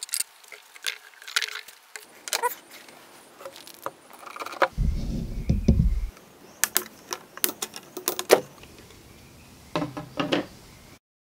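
Clinks, taps and knocks of battery-pack parts (finned aluminium case pieces and cell modules) being picked up and set down on a wooden workbench, with a heavier low rumble lasting about a second around five seconds in.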